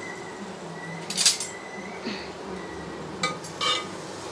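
Metal ladle clinking against a steel cooking pot while stirring thick brinjal kuzhambu: one sharp clink about a second in, then a few lighter clinks near the end.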